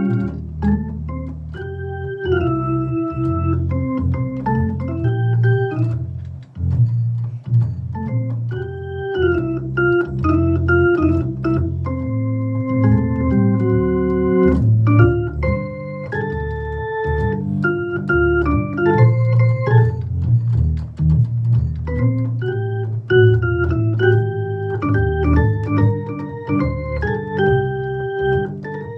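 Hammond XK-1c drawbar organ played solo: a moving melody line of short and held notes over a full, steady low register.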